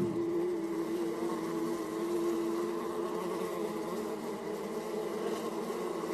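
Buzzing insect sound effect: a steady drone holding one pitch.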